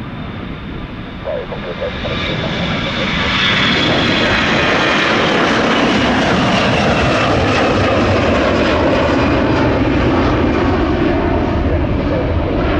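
Airbus A321's IAE V2500 turbofan engines at takeoff power during liftoff and climb-out. The jet roar swells over the first couple of seconds, then holds loud and steady, with a high fan whine early and tones that slowly fall in pitch as the airliner climbs away.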